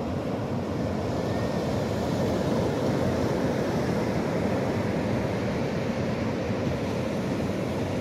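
Surf breaking on a sandy beach, heard as a steady rushing noise mixed with wind on the microphone.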